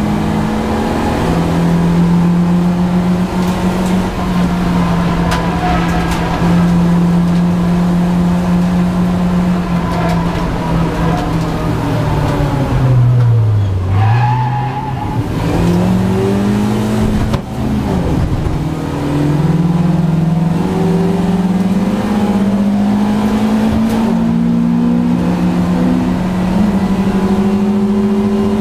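BMW Compact race car's engine heard from inside the stripped cabin, held at steady high revs, then falling under braking about halfway through with a quick dip and back up. The revs then climb again in rising sweeps broken by gear changes.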